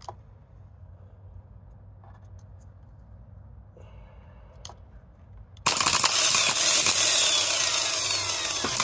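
The old starter motor from a 2012 Infiniti QX56, bench-tested off jumper cables: after a few faint clicks it kicks in suddenly about six seconds in and spins freely with a loud high whir for about three seconds, beginning to wind down near the end. This is the starter that has been sticking; loosened up, it now spins.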